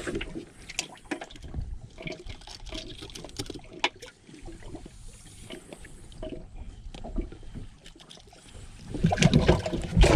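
Water trickling and sloshing, with scattered light clicks and knocks, as a caught bass is handled and put into a boat's livewell. A louder low rumbling noise comes in near the end.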